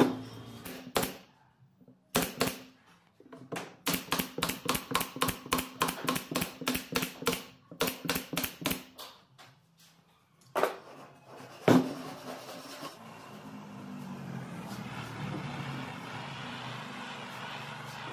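Pneumatic nail gun firing nails into pine boards: sharp shots, a few at first and then a fast run of about four a second, with two single shots after. From about two-thirds of the way through, a butane torch on a gas canister hisses steadily as it scorches the wood.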